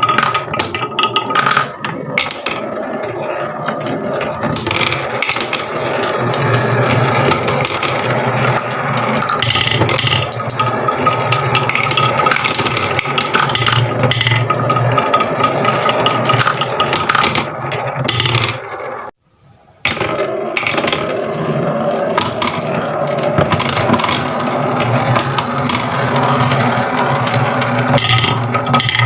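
Marbles rolling and clattering along a wooden marble run: a continuous scraping rattle dotted with sharp clicks. The sound drops out for under a second about two-thirds of the way through.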